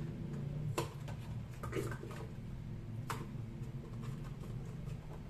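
A few light clicks and taps as a box of cream is emptied into a blender jar, over a steady low hum.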